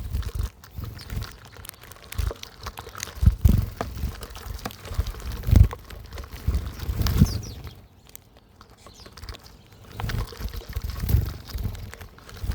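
Birds at a backyard feeder: faint short chirps over irregular low thuds and rumbles close to the microphone.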